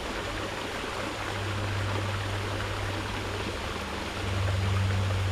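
Running water splashing and gurgling steadily, with a low steady hum underneath that grows louder about four seconds in.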